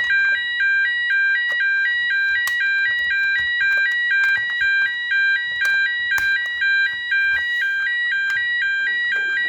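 Electronic fire alarm sounder going off continuously in an even alternating two-tone pattern. It is held on by a latching relay circuit, so a reset attempt has not stopped it. A few short clicks sound over it.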